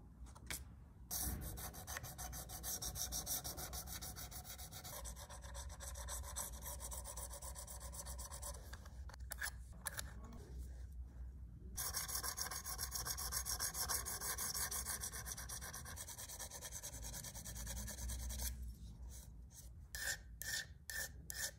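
Quick, even back-and-forth rubbing strokes of a small file or abrasive stick across a small brass part held in a bench vise. The strokes come in two long runs with a short break about halfway, followed by a few light metal clicks near the end.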